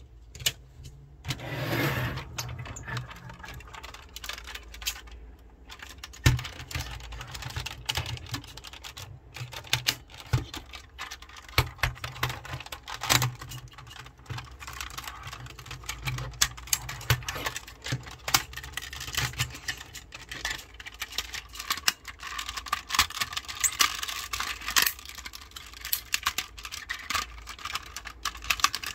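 Plastic parts of a Tobot transforming toy clicking and rattling as it is folded by hand from a car into a robot, with many quick snaps and clacks of the panels and joints.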